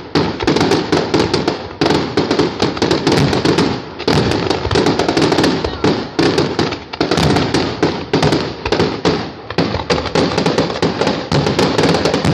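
Fireworks display at full intensity: a dense, near-continuous barrage of overlapping bangs and crackles from many shells bursting at once.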